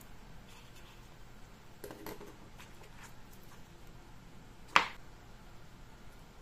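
Handling noise as a small plastic wireless microphone transmitter is lifted out of its foam-lined plastic case: light clicks and rustles, then one sharp click about three-quarters of the way through.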